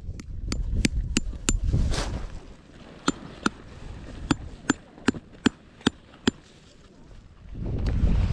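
Tent pegs being hammered into the ground: a quick run of five sharp, evenly spaced strikes, then after a short pause a second run of about eight strikes, roughly two to three a second. Wind buffets the microphone during the first two seconds.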